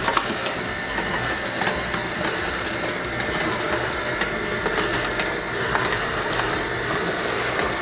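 Vertical slow juicer running, its auger grinding whole green apples with a steady motor hum and scattered small cracks.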